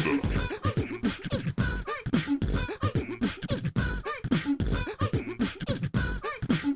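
Beatboxing: rhythmic mouth percussion mixed with short bending vocal sounds, in a pattern that repeats about every two seconds.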